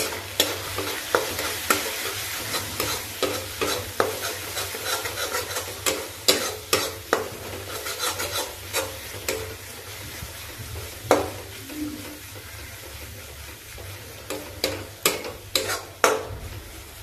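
Spiced onion-tomato masala sizzling in oil in a metal kadai while a metal spatula stirs it, scraping and clicking against the pan about once or twice a second. The masala is being fried with its freshly added ground spices.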